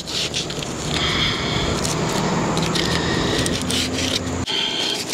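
Coarse 60-grit sandpaper rubbed by hand over the edge of skylight glass, roughing it up for better adhesion: a continuous scraping that stops suddenly near the end.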